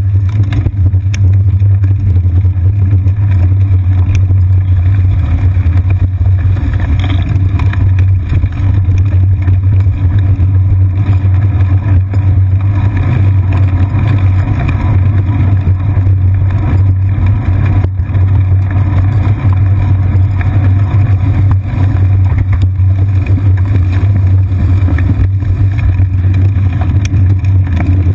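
Steady low rumble of wind and road vibration picked up by a GoPro Hero 2 mounted on a moving bicycle's seat post, with occasional light knocks from bumps in the path.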